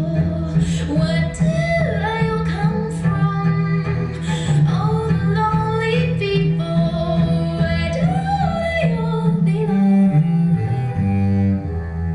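Recorded music with a sung vocal line over low bowed strings and a steady bass, played back through a push-pull 6550 tube amplifier and loudspeakers.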